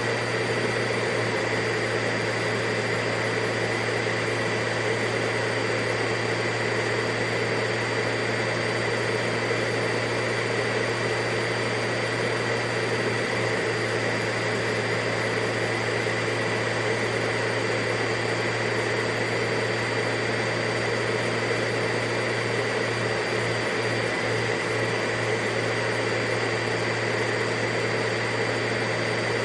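Vacuum cleaner running steadily: a constant rush of air with a low motor hum and a thin high whine, all held at one pitch and level throughout.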